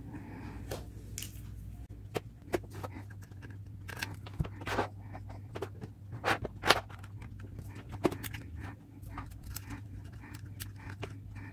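Irregular small clicks, taps and scrapes of hands handling electronic parts and tools, the sharpest pair about six to seven seconds in, over a steady low hum.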